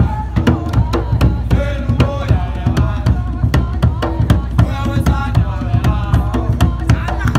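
A djembe-style hand drum beats a fast, steady rhythm while voices sing along with it.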